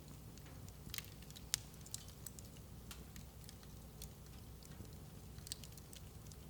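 Wood fire burning in a fireplace: a faint low rumble of the flames with scattered sharp crackles and pops, the loudest about one and a half seconds in.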